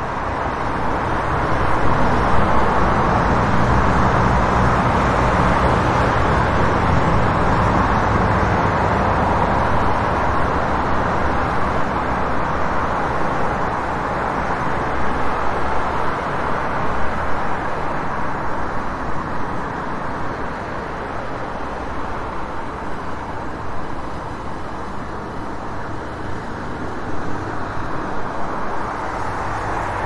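City street traffic ambience: a steady wash of road noise from passing cars and their engines, a little louder in the first half and easing somewhat later on.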